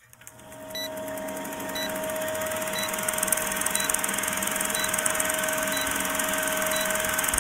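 Old-film countdown leader sound effect: a film projector's steady rattling whir with crackle, and a short high tick about once a second as the numbers count down.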